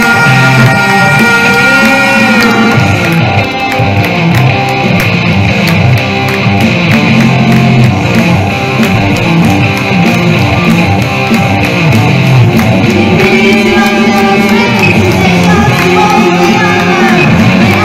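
Live hard rock played loud: an electric guitar through an amplifier, with a singer and a steady drum beat underneath.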